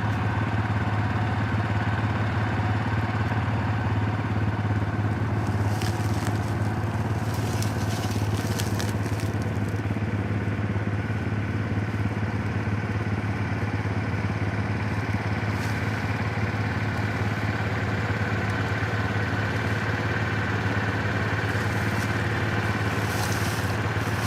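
Four-wheeler (ATV) engine running steadily with an even low hum, with two short stretches of crackling, one about six to nine seconds in and one near the end.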